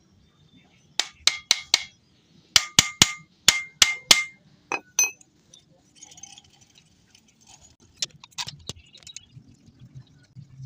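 Sharp metallic taps with a brief ring, in quick runs of several strikes, then a few more near the end: a hammer or tool striking metal alternator parts during bench repair.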